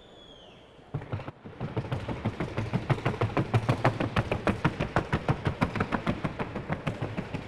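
Horse's hooves striking a wooden sounding board in the fast, even rhythm of the trocha gait, beginning with a knock about a second in and going on as a rapid run of several hoofbeats a second.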